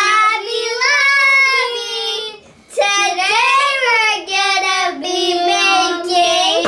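Children singing together in high voices, with long held and sliding notes and a short break about two and a half seconds in.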